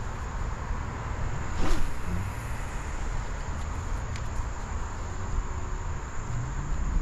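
Insects buzzing steadily in one high tone over a constant rushing background noise, with a brief louder sound a little under two seconds in.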